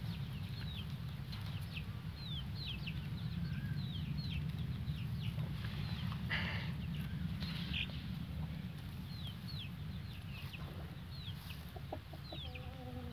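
Young chicks peeping over and over, short high notes that slide downward, scattered through the whole stretch. A brief lower call sounds near the end, over a steady low hum in the background.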